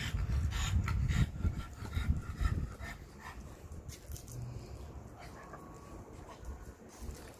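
Several dogs moving about close by and panting, louder for about the first three seconds and quieter after.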